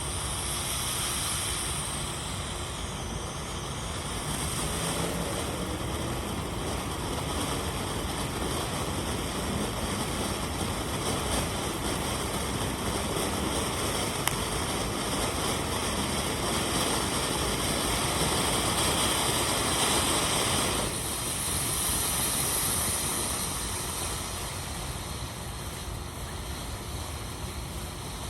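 Winda Fireworks 'Silent Mode' firework fountain burning with a steady spraying hiss, a quiet-type fountain without loud bangs. The hiss swells about twenty seconds in, then drops off suddenly.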